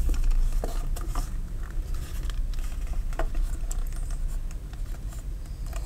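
Handling noise from knife sheaths being picked up and moved on a desk: scattered light clicks, taps and rustles. Under them runs a steady low hum.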